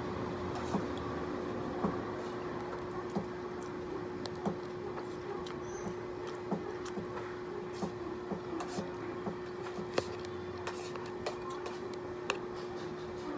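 Metal spoon and fork clicking and scraping against a plate while eating, with soft chewing, over a steady low hum.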